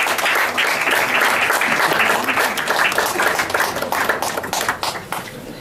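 Small audience applauding, the clapping thinning out and dying away near the end.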